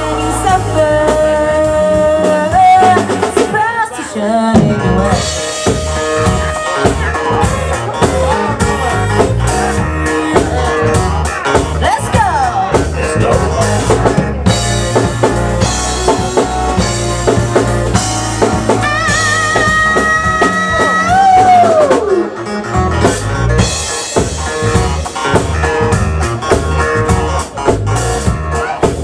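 Live band playing: a steady drum-kit beat under guitar and a woman singing, with a long held note about two-thirds of the way through that slides down at its end.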